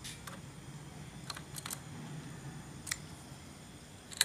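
Sparse small clicks and taps as a hand works the motorcycle's ignition key, the sharpest near the end, over a faint low steady hum; the engine is not running.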